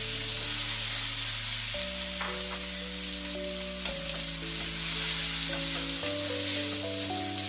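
Pork sizzling in hot cooking oil with garlic and onion as it is sautéed, with a steady frying hiss. Soft background music with sustained chords plays along.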